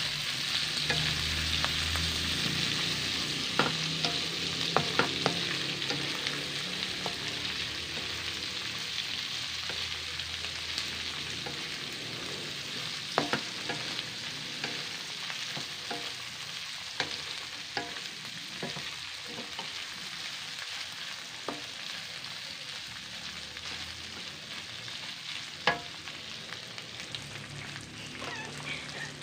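Strips of pork and liver sizzling in hot oil in a steel wok while being stirred with a wooden spatula: a steady frying hiss that slowly dies down, with scattered sharp clicks and taps of the spatula against the pan.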